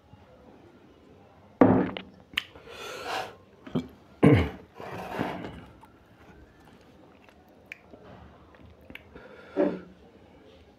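Close-up eating sounds of mutton curry with rice: a few separate loud mouth sounds with two longer hissy slurps, and quiet chewing in between.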